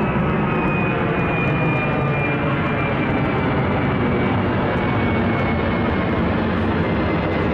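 Twin-engine jet airliner climbing overhead after takeoff: a steady loud jet roar with a thin high whine that slowly falls in pitch as the plane draws away.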